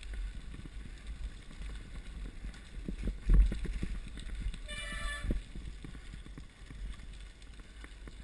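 Mountain bike descending a gravel forest trail, heard from a camera mounted on the rider: wind buffeting the microphone, tyres on gravel and the bike rattling over bumps, with a hard knock a little over three seconds in. A brief high-pitched squeal sounds about five seconds in.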